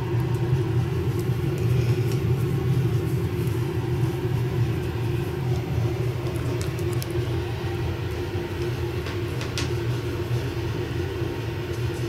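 A steady low rumbling hum, with a few faint clicks in the second half.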